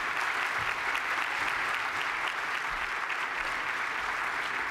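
Audience applauding steadily, a dense crackle of many hands clapping, welcoming a speaker to the podium.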